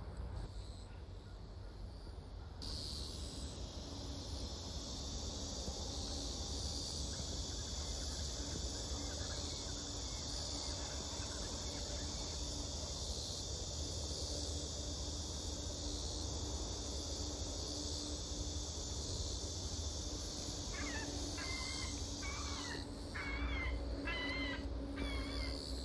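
Summer cicada chorus: a steady high-pitched buzz that starts suddenly about three seconds in and stops shortly before the end, over a low outdoor rumble. Near the end, a run of short wavering calls that rise and fall in pitch takes over.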